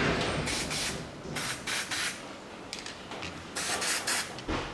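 Aerosol lubricant spray can hissing in several short bursts as it sprays the threaded studs of a front strut's top mount.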